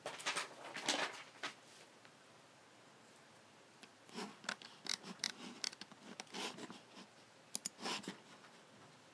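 Logitech G7 computer mouse buttons clicking in irregular runs: a cluster in the first two seconds, a pause, a longer run of clicks from about four seconds in, and a quick double click near the end.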